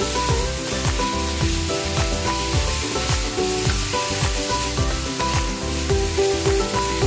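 Chicken and rice noodles sizzling as they are stir-fried in a hot pan, under background music with held notes and a steady beat.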